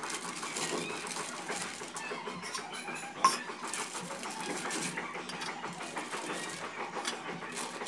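Crinkling of a plastic snack bag as it is opened and handled and dry snacks are poured from it, a dense crackle of small clicks, with one sharp click about three seconds in.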